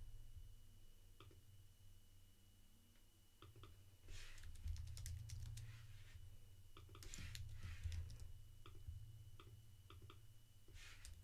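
Faint computer keyboard typing in short bursts about four, seven and eleven seconds in, with scattered single clicks between.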